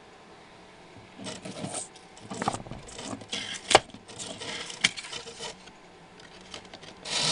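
Hands handling a small plastic tool case and its blister-pack card: rustling and scraping with a couple of sharp clicks, then a short loud bump near the end.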